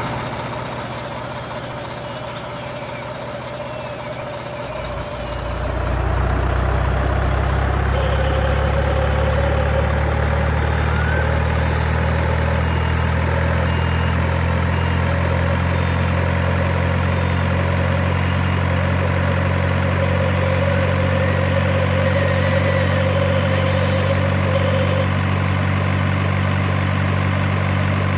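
Heavy vehicle engine idling with a steady low hum. It gets louder about five seconds in, then holds steady, with a faint whine above it.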